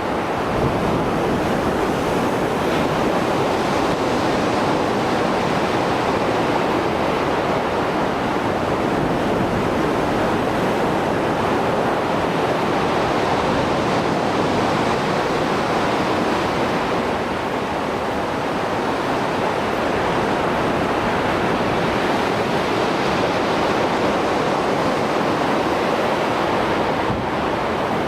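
Rough Mediterranean Sea surf after a storm: a steady rush of waves washing onto the shore, swelling and easing slowly every several seconds.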